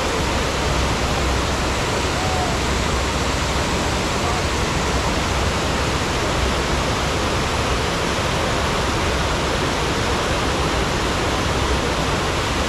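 Steady, loud rush of water from a FlowRider surf simulator, its pumps driving a thin sheet of water up the padded ride surface, with a faint voice over it now and then.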